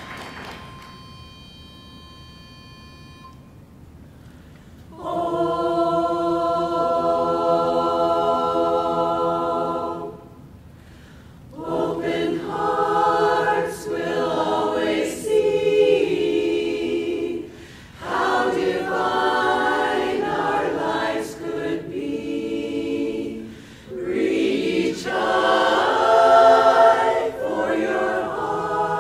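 Women's barbershop chorus singing a cappella in close harmony: one long held chord from about five seconds in, then phrases with short breaks between them. Before the singing, a faint steady pitch-pipe note sounds for about two seconds to give the starting pitch.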